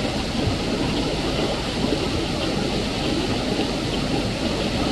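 Rain-swollen mountain creek rushing over rocks in rapids: a steady, loud wash of fast-flowing water.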